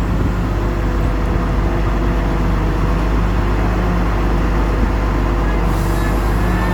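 Heavy diesel engine running steadily at constant speed. A high hiss joins about six seconds in.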